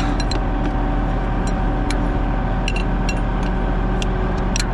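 Tractor diesel engine running steadily, with scattered light clicks and ticks over it.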